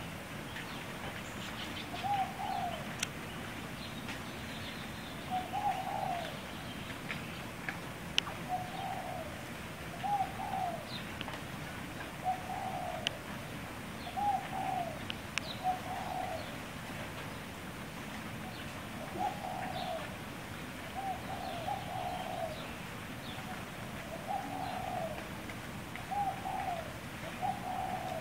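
Male kalij pheasant giving soft, low call notes, a short falling phrase about every one to two seconds, about a dozen in all, with faint high ticks and chirps behind.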